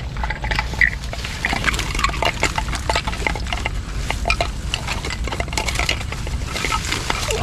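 Irregular clicks, taps and clattering from a fish trap being handled as a snakehead fish is taken out of it, over a steady low rumble.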